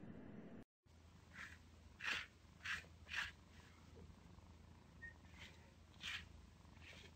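Fluffy orange kitten making a string of short, soft sounds over a faint low hum: four in quick succession, then a few more spaced out. Just under a second in, all sound drops out for a moment.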